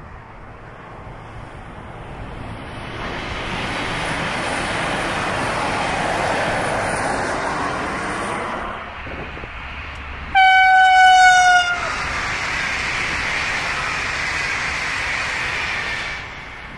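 V/Line VLocity diesel railcar sets passing at speed on the main line, the rail and engine noise building and falling away. About ten seconds in, a horn sounds once for about a second and a half, its pitch dropping at the end as the train goes by.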